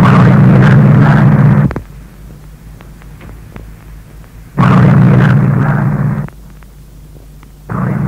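Old tape recording of a short, garbled voice-like snatch buried in loud hiss and hum, replayed in bursts about three seconds apart: the same fragment repeated twice, with a third repeat starting near the end. It is presented as a radio-frequency 'spirit voice' (electronic voice phenomenon) said to say in Latvian 'Loritz will join'.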